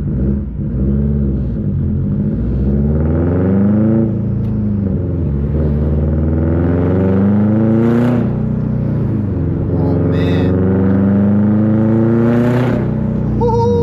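Subaru STI's turbocharged flat-four running through a Tomei titanium cat-back exhaust with a catless downpipe, pulling hard under acceleration. The note climbs in pitch three times, dropping abruptly at each upshift, about four seconds in, about eight seconds in and near the end.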